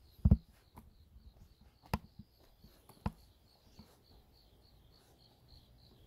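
Insect chirping, a steady train of short high chirps about three a second, typical of a cricket at night. A few soft thumps stand out, the loudest just after the start.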